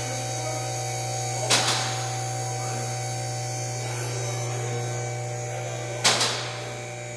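Steady low hum with a row of higher steady tones, broken twice by a short, sharp hiss, about a second and a half in and again about six seconds in.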